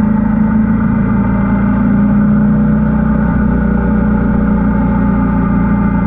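Royal Enfield Himalayan 450's single-cylinder engine running under way at a steady pitch, as at a constant cruising speed.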